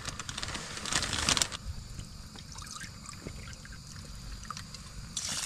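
Water poured from a plastic bottle into a plastic cup, to go into a camping pot of rice. The pouring is loudest in the first second and a half, then goes on as a fainter trickle.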